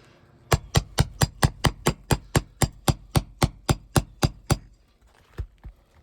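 Roofing hammer striking a nail puller in a quick, even run of about eighteen blows, about four a second, driving it under a roofing nail in an asphalt shingle to pull the nail. Two lighter knocks follow near the end.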